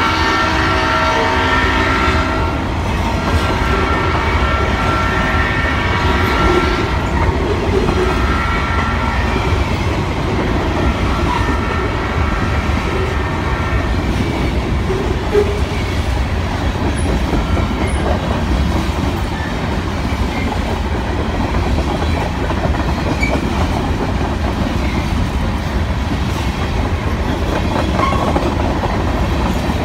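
Freight train's hopper cars rolling past close by: a steady rumble with clattering wheels on the rail joints. Over the first half, the lead diesel locomotive's horn sounds several long blasts and one short one, matching the long-long-short-long grade-crossing signal.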